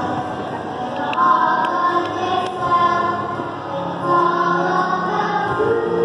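Children's choir singing together, holding long notes that move from pitch to pitch.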